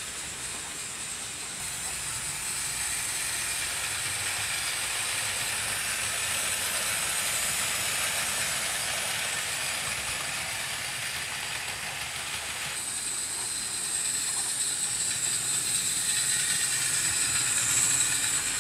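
Hornby OO gauge model GWR 6100 class 2-6-2 tank locomotive running with a short freight train: a steady whirring of the motor and wheels on the track, getting louder near the end as the train passes close. It is an older model that is not the quietest of runners.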